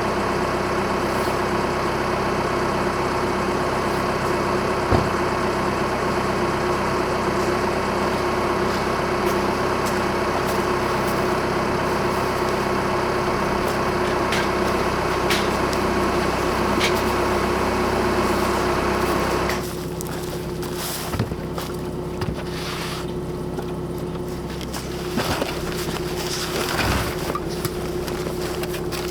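A steady engine-like drone with a held hum, which drops in level about two-thirds of the way through, followed by scattered clicks and knocks.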